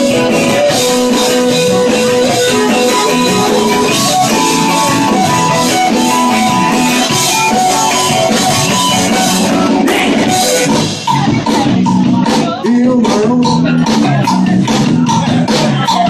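Live rock and roll band playing, with acoustic and electric guitars over drums. About ten seconds in, the music turns choppier, with sharp, evenly repeating hits.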